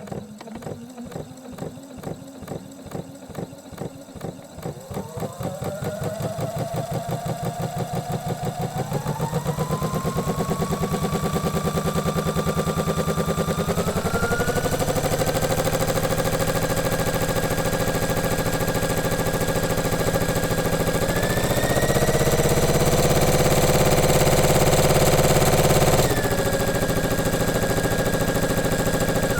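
Electric sewing machine running, starting with slow, separate stitch clacks and speeding up in several steps into a fast, even whir with a rising motor whine. Near the end it eases back to a slightly slower speed.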